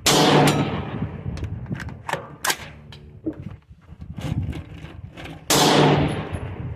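Two loud rifle shots about five and a half seconds apart, each followed by a long echo, with fainter sharp cracks and clinks between them.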